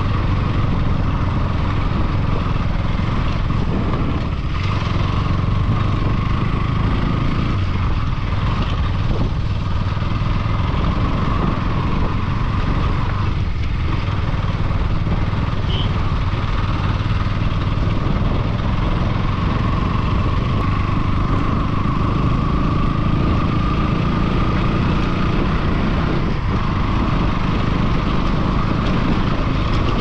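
A vehicle on the move: an engine running steadily under heavy low rumble, its pitch drifting slowly up and down.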